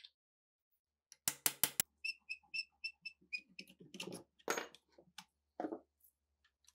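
Hand work on old machine-gun parts: four sharp metal clicks in quick succession, then a fast run of about nine high squeaks, then scraping and knocking.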